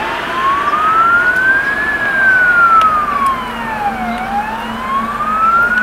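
Fire engine's electronic siren on an emergency run, wailing in a slow rise and fall. It peaks about two seconds in, drops to its lowest about four seconds in, then climbs again, with a fainter second wailing tone joining after about three seconds.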